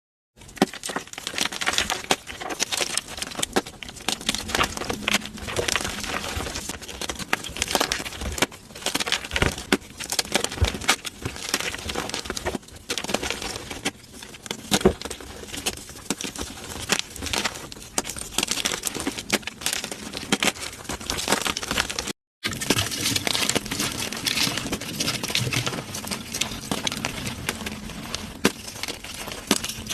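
Gym chalk being crushed, a dense run of crunchy cracks and crackling with softer powdery crumbling. It breaks off for a moment about two-thirds of the way through.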